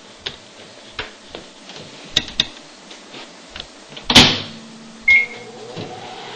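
Microwave oven being shut and started: a few clicks, a loud knock of the door closing about four seconds in, a short keypad beep about a second later, and then the oven's steady running hum.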